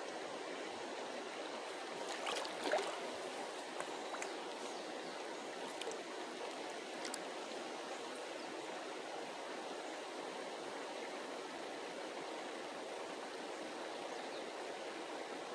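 Steady rush of river water flowing past rocks, with a brief swish about two to three seconds in and a few light clicks after it.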